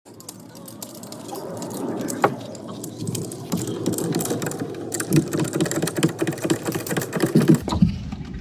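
Busy mechanical clattering with many sharp clicks, growing louder over the first couple of seconds, then a run of low, uneven knocks in the second half.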